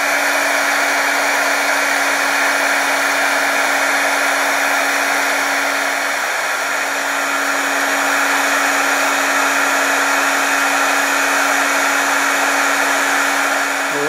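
Electric heat gun blowing steadily on heat-shrink tubing to shrink it down over a cable joint: an even rush of air with a steady low hum under it.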